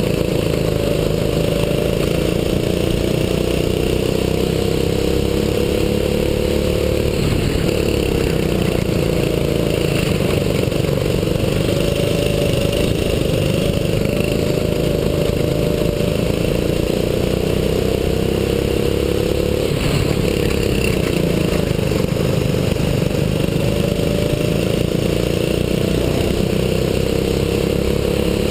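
Onboard sound of a 6.5 hp single-cylinder four-stroke kart engine at racing pace. Its pitch climbs gradually, then drops sharply twice as the kart slows for corners, and climbs again.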